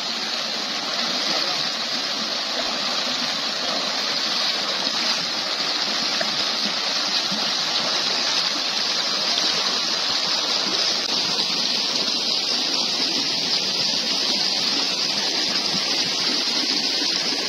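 Shallow, rocky stream rushing and splashing over stones in a steady, unbroken rush of water.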